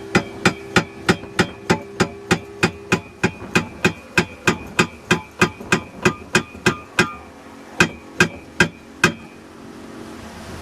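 Rapid, steady knocking on the boat's hull, about three strikes a second, each with a short ringing tone, the way mullet gillnetters pound the boat to drive fish into the net. The strikes thin out and stop about nine seconds in.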